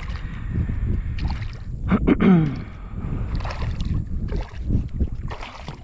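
Wind rumbling on the microphone over water noise around a kayak, with a short vocal grunt about two seconds in.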